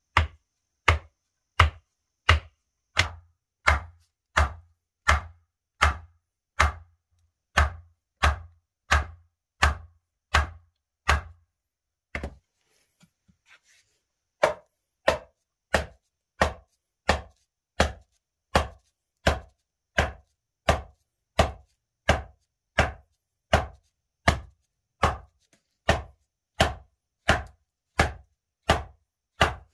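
A short length of wood used as a mallet knocking on the tops of forked wooden stakes, driving them into a packed dirt floor: steady, evenly paced blows, about one and a half a second. The blows stop for about two seconds near the middle, and the deep thud under each blow is gone after the pause.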